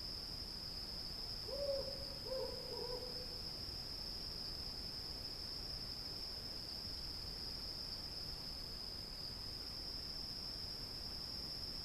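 Steady, high-pitched chorus of cicadas droning without a break, with an owl hooting three times in quick succession about a second and a half in.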